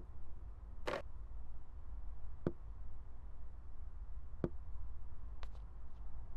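Light clinks and knocks of serving spoons against ceramic plates and dishes as food is served at a dining table, about five separate taps, a couple of them briefly ringing, over a low steady hum.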